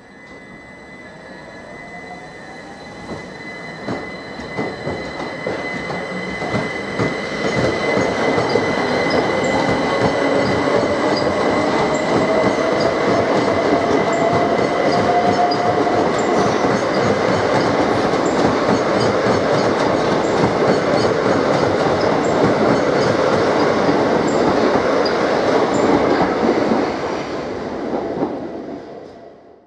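Multiple-unit passenger train running past on the rails. The wheel and rail noise builds over the first several seconds, holds steady with a thin high squeal and a whine that rises in pitch midway, then fades out near the end.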